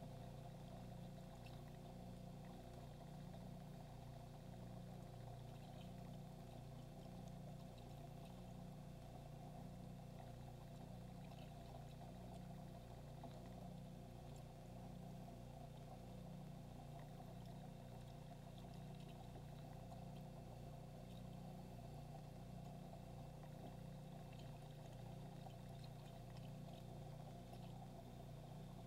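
Faint, steady low hum of an aquarium filter running, with a light trickle of moving water over it.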